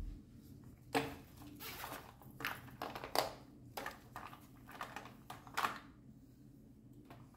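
A zippered mesh makeup pouch and its contents being handled: an irregular run of rustles, light clicks and knocks from about a second in until about six seconds, over a faint steady hum.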